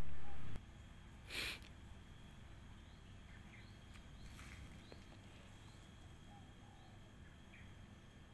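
Quiet garden ambience: faint scattered bird chirps over a steady high insect drone. A low rumble on the microphone in the first half second is the loudest part, and a brief hissing rustle comes about a second and a half in.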